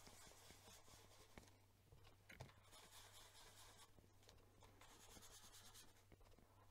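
Very faint rubbing and scuffing of a small ink sponge worked over cardstock, with a few light ticks.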